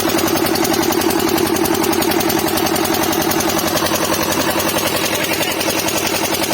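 Small motor boat engine running steadily with a fast, even chugging beat.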